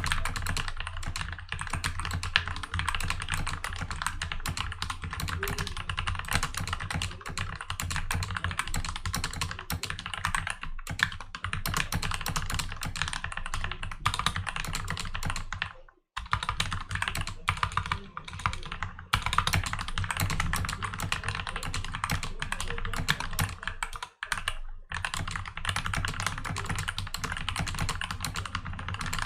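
Fast continuous typing on a mechanical keyboard with freshly lubed, filmed switches, greased stabilizers and added foam: a dense stream of key clacks, with two brief pauses, one a little past halfway and one near the end.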